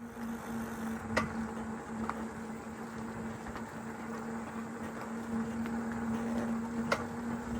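Electric bike riding along a trail: a steady, even motor hum over rushing tyre and wind noise, with two sharp knocks about a second in and again near the end.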